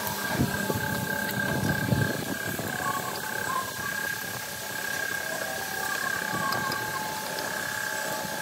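A steady high whine over a constant mechanical hum, with a few light knocks in the first two seconds as hoses and wiring are handled in a car's engine bay.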